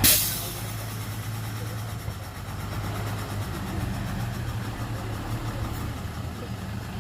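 Heavy diesel engine running steadily at idle. It opens with a loud, short hiss that dies away within about half a second.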